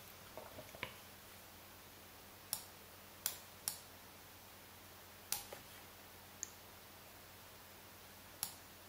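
Computer mouse clicking: six separate short, sharp clicks, irregularly spaced, two of them close together a little past three seconds in, over a faint low hum.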